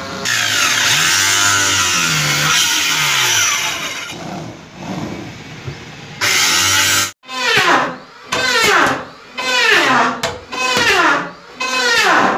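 Hand-held electric power tool running, its whine wavering in pitch. After a sudden cut, a run of loud bursts comes about once a second, each sliding down in pitch.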